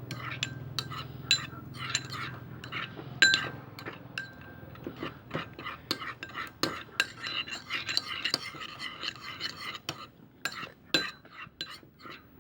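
A stirring utensil working a thickening mix of glue and laundry detergent in a hard container, clinking against the sides over and over with a short ringing note. A spell of denser scraping comes about two-thirds of the way through.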